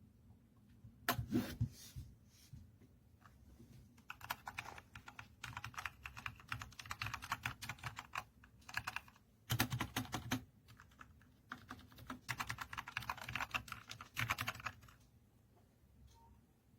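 Typing on the Dierya T68SE 60% mechanical keyboard with red linear switches: rapid runs of key clicks in several bursts, with short pauses between them.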